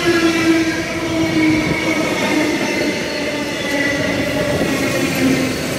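Intermodal freight train of trailer and container wagons rolling slowly past while braking to a halt, several steady metallic squealing tones sounding over the rumble of wheels on rail.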